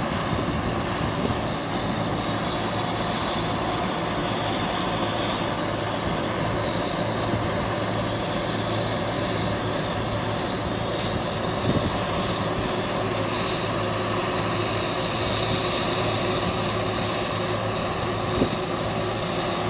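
Lely combine harvester running steadily while harvesting barley: a constant engine drone with a high whine over it, and a brief knock near the end.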